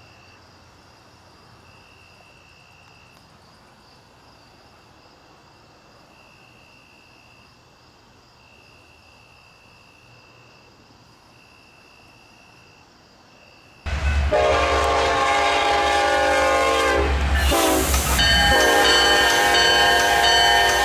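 A Union Pacific diesel locomotive's air horn sounding a multi-note chord over a low engine rumble: it starts suddenly about two-thirds of the way in, breaks off briefly, then comes in again as a second long blast. Before it, only a quiet background with a faint, repeating high-pitched trill.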